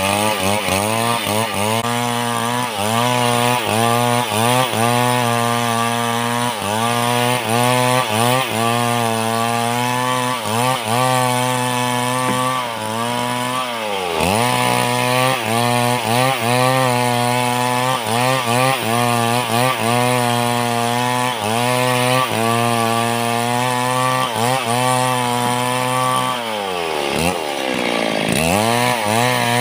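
Two-stroke chainsaw at full throttle ripping a log lengthwise, its engine pitch wavering constantly as the chain loads in the wood. Twice, about halfway through and near the end, the revs drop sharply and climb back up.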